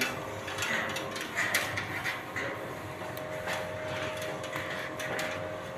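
Rustling and scattered light clicks of electrical wires being handled and pushed into flexible plastic conduit.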